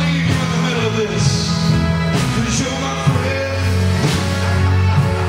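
Live church praise music: a drum kit with cymbal strikes about every two seconds over steady held bass notes, with a man singing.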